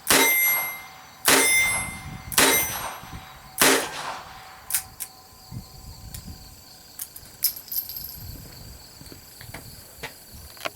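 Four shots from a Ruger GP100 .22 LR revolver, a little over a second apart, each with a brief ringing tail. After the last shot come a few light clicks and taps.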